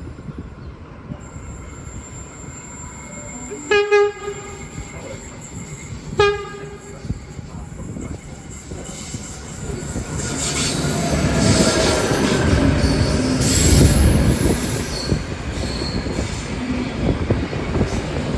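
Two short blasts of a V/Line VLocity diesel multiple unit's low-note horn, about two seconds apart, then the train arriving: its running noise builds and peaks about two-thirds of the way through, with high squealing from the train over it.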